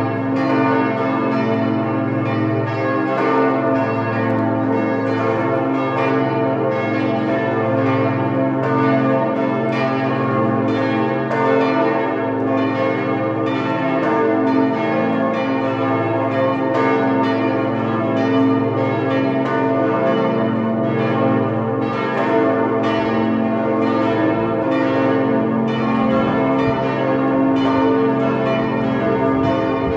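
Church bells ringing in a continuous peal: repeated strikes over a steady, sustained ringing of many overlapping tones.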